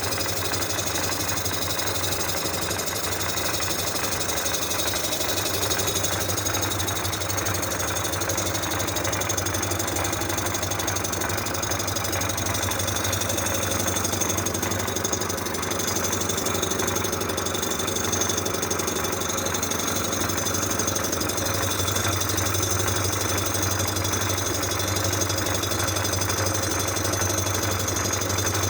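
Cylinder head surfacing machine running steadily while it takes a cut of about five thousandths off the rusty exhaust-side face of an Oldsmobile V8 head.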